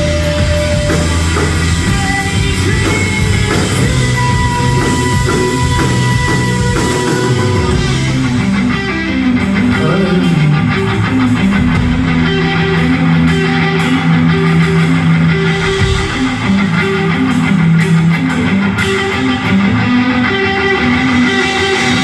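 Rock band playing loud: electric guitar, bass and drums. About eight seconds in, the drums thin out and held guitar and bass notes carry on.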